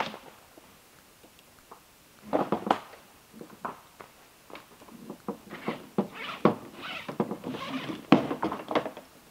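Cedar boards being handled: irregular knocks, scrapes and rustles in quick clusters, with a lull between about half a second and two seconds in.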